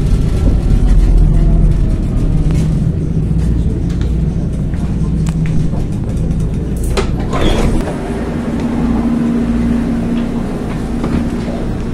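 Alstom tram heard from inside the passenger car as it rolls along: a steady low rumble with a hum from the drive. Two sharp clicks come about seven seconds in, then a higher steady tone as the tram comes into the stop.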